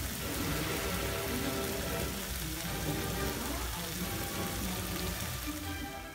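Egg sambal gravy sizzling and simmering in a frying pan, a steady hiss.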